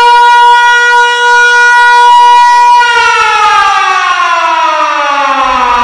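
A loud, siren-like tone, held steady for about three seconds and then sliding smoothly down in pitch.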